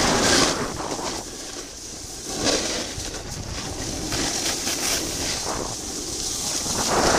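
Wind buffeting the microphone while riding fast down a groomed ski run, mixed with the scrape of edges on packed snow, swelling and easing every couple of seconds as the rider turns.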